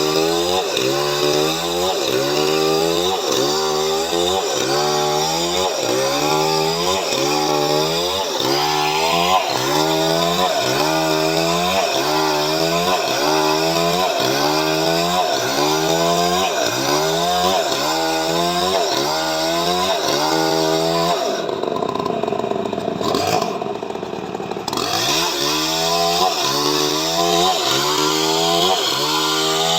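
Chainsaw running under load while sawing coconut wood into boards. Its engine pitch dips and recovers about once a second. About two-thirds of the way through, the rhythm drops out for roughly three seconds, then resumes.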